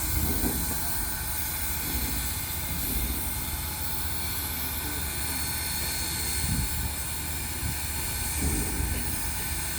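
Southern Railway 4501 steam locomotive standing with a steady hiss of steam over a low rumble.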